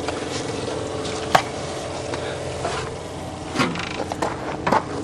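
A steady mechanical hum, with one sharp click about a second and a half in and a few short scuffing knocks near the end.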